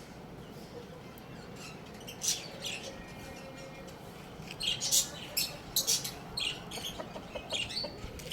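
Short, sharp, high-pitched bird squawks and chirps over a steady background hiss, one about two seconds in, then a quick irregular cluster from about four and a half seconds on.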